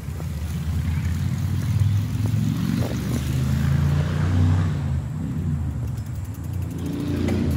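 Low steady rumble of a bicycle rolling over concrete, its tyres running on the rough surface.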